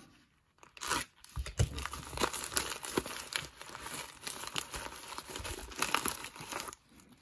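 Black poly bubble mailer being torn open and crinkled by hand: irregular tearing and crinkling of plastic. It starts about a second in and stops shortly before the end.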